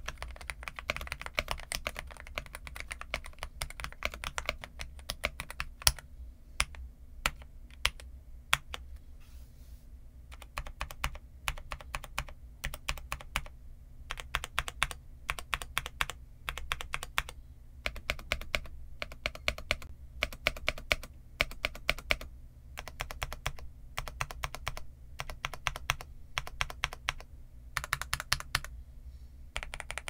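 Typing on a Zuoya GMK81 mechanical keyboard with Gateron Milky Yellow Pro linear switches and PBT dye-sub keycaps. Fast, continuous keystrokes for about the first six seconds, then slower, separate key presses in short runs with brief pauses between them.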